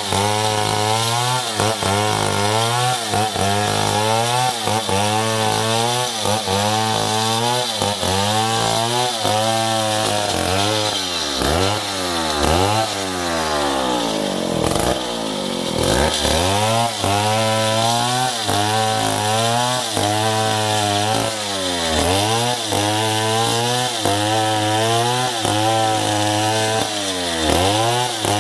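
Stihl 070 large two-stroke chainsaw cutting through wood. The engine pitch dips and recovers about once a second as the saw loads in the cut, and about halfway through it drops low and then picks up again.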